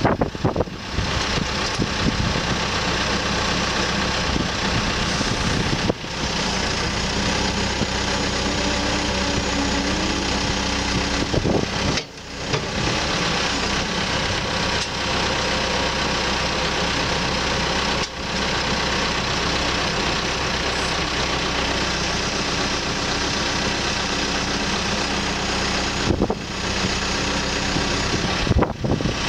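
Caterpillar 430E backhoe loader's diesel engine running steadily, with brief breaks in the sound about every six seconds.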